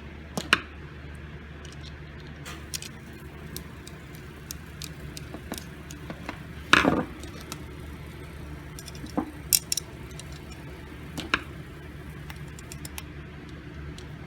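Small screws and metal parts of a gumball machine coin mechanism being handled and fastened: scattered light clicks and taps, the loudest about halfway through, over a steady low hum.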